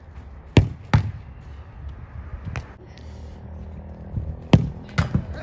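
Football being struck in goalkeeper training: sharp thuds of the ball off boot and goalkeeper gloves, in pairs about half a second apart, once about half a second in and again near the end, with a lighter knock in between.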